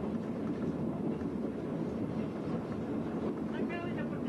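Railway works draisine (motor rail trolley) running along the track: a steady engine and wheel-on-rail rumble. A brief high-pitched tone rises over it near the end.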